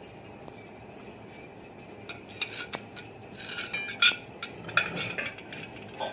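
Metal ladle clinking and scraping against a metal cooking pot while khichdi is stirred: a run of uneven clinks and knocks that starts about two seconds in and is loudest around the middle.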